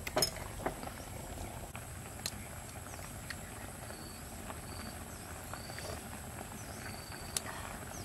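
Eating sounds: a metal spoon clicking against the wok and mouth, with chewing and sipping of soup broth, in scattered sharp clicks. A few short high chirps sound in the second half.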